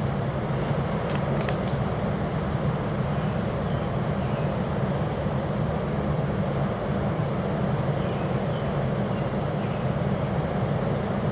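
Strong wind blowing, a steady low rumbling noise that does not let up. About a second in, a few quick sharp clicks.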